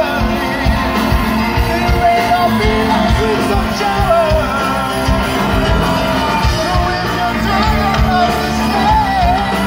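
Live rock band playing: electric guitars, bass and drum kit, with a voice singing over them.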